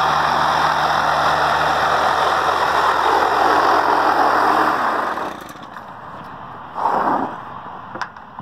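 Stihl KM 110R KombiMotor's small two-stroke engine running steadily, spinning the paddle-broom sweeper through wet snow; it stops about five seconds in. Afterwards a brief rushing sound and a few clicks.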